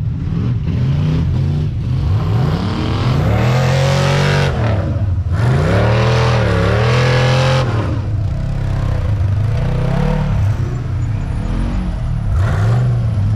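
Lifted SUV on large mud tyres revving hard in repeated bursts, the engine pitch climbing and dropping again and again. The tyres spin and throw sand and snow as it fights for traction in the ruts.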